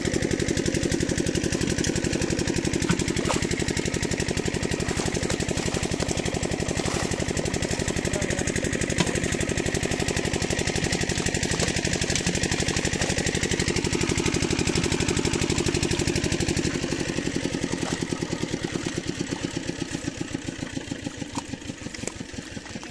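Boat engine running steadily with a fast, even chugging; it fades over the last several seconds.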